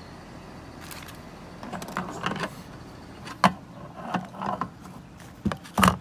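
Clear plastic parts bag crinkling as a hand rummages inside it for small washers and O-rings, with a few sharp clicks and rattles among the crinkles.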